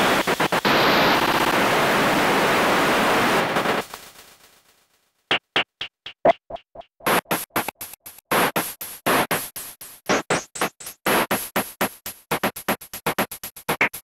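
Electronic white noise as a film soundtrack. A steady loud hiss fades out about four seconds in, and after a second of silence the noise comes back chopped into rapid on-off bursts, about five or six a second.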